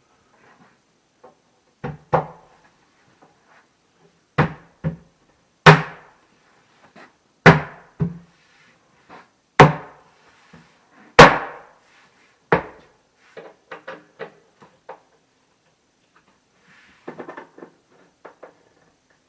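Sharp knocks on the wooden panels of a cabinet being assembled, about a dozen strikes, several in quick pairs, the loudest near the middle, followed by lighter taps and clicks near the end.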